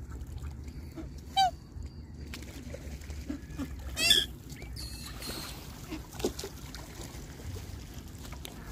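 Black swans calling: two short, high, pitched calls, one about a second and a half in and a louder one about four seconds in, with a few fainter calls afterwards.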